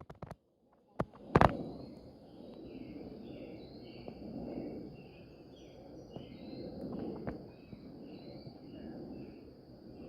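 Outdoor insect chorus: a steady high buzz with a string of repeated chirps, over a low rushing noise that swells and fades every couple of seconds. A few clicks at the very start and a loud knock about a second and a half in.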